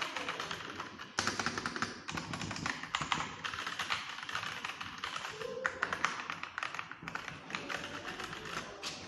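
Fast typing on an 87-key mechanical keyboard: a rapid run of key clacks, pausing briefly about a second in, then resuming.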